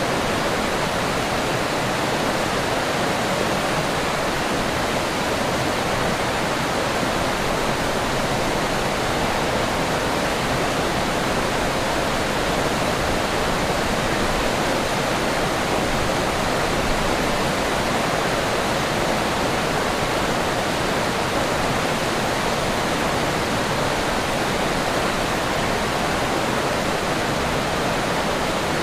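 Forest river flowing: a steady, even rush of water with no breaks or changes.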